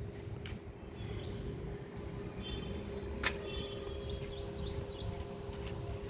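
Small birds giving short high chirps in a few quick runs, over a steady low rumble and a steady hum. A single sharp click about three seconds in is the loudest sound.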